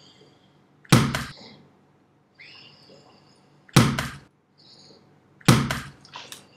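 A ball striking hard, three times: loud thuds about a second in, near four seconds and about five and a half seconds, the first and last each followed quickly by a smaller knock. Soft hissing swishes sound between the hits.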